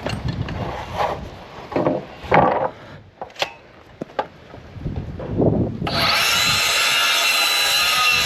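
Timber rafter stock being handled, with irregular scraping, rubbing and knocks of wood on wood. About six seconds in, a loud, steady whirring noise starts abruptly and keeps going.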